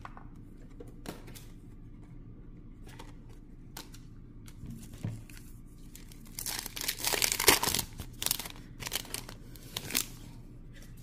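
A Topps Chrome trading-card pack's foil wrapper being torn open and crinkled, loudest about six to eight seconds in, with further crackling as the cards are pulled out. Before it, light clicks of cards being handled.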